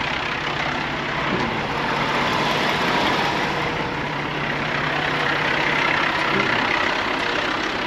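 Kenworth T880 vac truck's diesel engine idling steadily, with a dense steady running noise; its low hum shifts slightly about six and a half seconds in.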